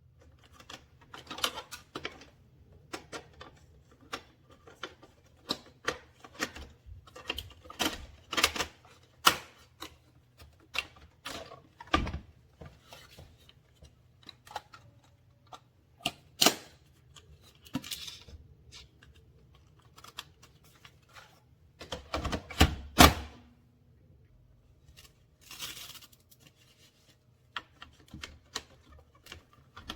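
Irregular clicks and knocks, a few every second, with a cluster of louder knocks about three-quarters of the way through, over a faint low hum.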